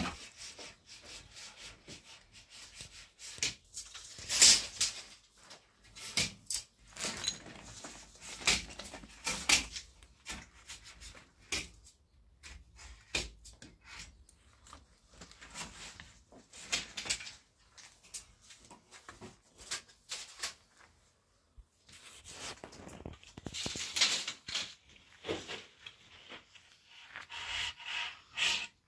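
Irregular knocks, taps and rubbing of wooden boards being handled, sharp clicks with quiet gaps between, loudest about four seconds in and again near the end.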